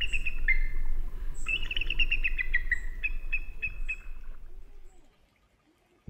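Bald eagle calling: two quick runs of high, piping, chattering notes, the second longer and stepping down in pitch, over a low rumble. It all fades out about five seconds in.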